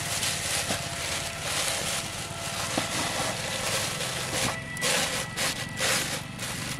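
Thin plastic bags crinkling and rustling as hands open a black bag of shrimp and handle it, in irregular surges.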